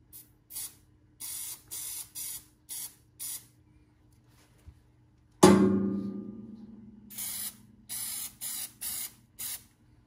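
Aerosol can of green spray paint hissing in short bursts, laying a light touch-up coat over primer: about seven quick sprays, a pause, then about five more. About five and a half seconds in there is a sudden loud knock that rings on and fades over a second or so.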